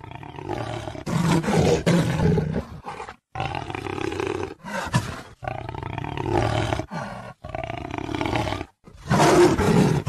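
Big cat snarling and roaring in about six harsh bursts, each cut off abruptly by a short silence. The loudest bursts come about a second in and near the end.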